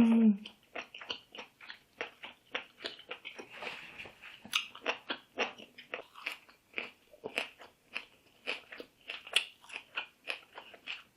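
Close-miked eating of a seafood boil: wet chewing with many short clicks and smacks of the mouth, a few a second, unevenly spaced.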